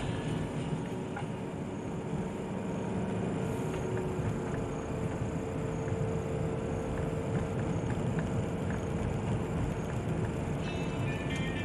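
Car driving along a narrow country lane, its engine and tyre noise heard from inside the cabin as a steady low rumble with small ticks from bumps in the road surface.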